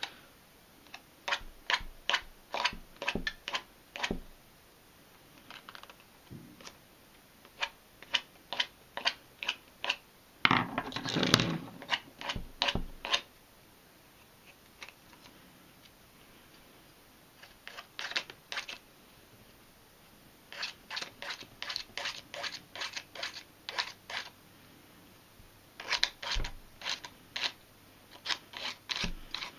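Short, scratchy strokes of a sanding stick rubbed along the edge of a wooden fingerboard deck, sanding through the overhanging graphic sticker to trim it off. The strokes come in runs of about three or four a second, with pauses between runs.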